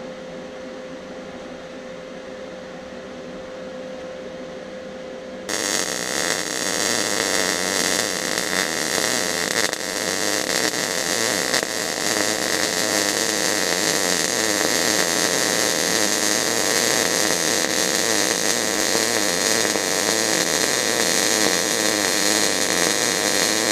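A steady machine hum; then, about five seconds in, the MIG welding arc of an Eastwood MIG 250 strikes and crackles steadily and continuously. It is running ER70S-6 solid wire under C25 gas on 14-gauge mild steel, with the wire stickout too long.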